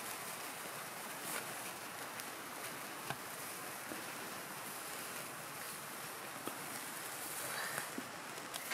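Sparklers fizzing with a steady hiss, with a few faint crackles.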